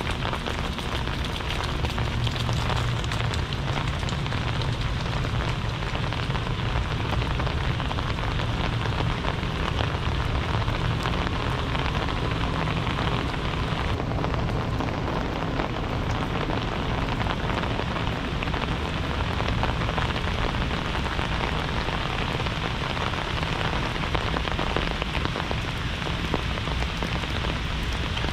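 Steady heavy rain falling and splashing: an even hiss with a deep rumble underneath.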